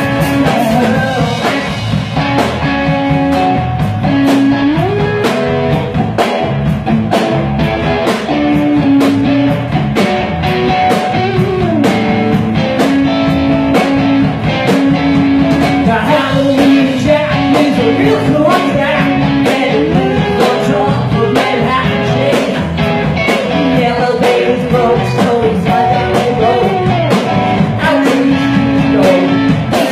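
Live rock band playing: a man singing into a microphone over electric guitars and a drum kit keeping a steady beat.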